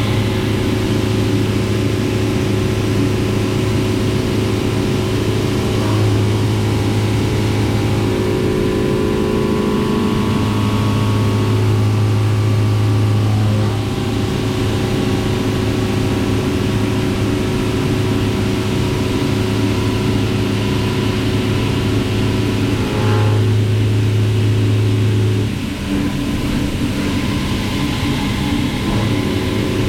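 A CNC machining centre running under power: a steady machine hum with several steady tones. A deeper tone comes and goes in stretches of a few seconds, and a brief change near the middle and a dip about three-quarters of the way through mark parts of the machine starting and stopping.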